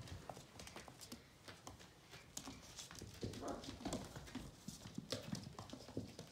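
Vizsla puppies' paws and claws clicking on a hardwood floor and rug as they scamper about, in quick, irregular taps.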